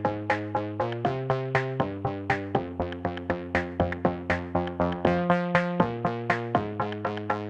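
Background electronic music: synthesizer chords over a steady beat of about four strokes a second.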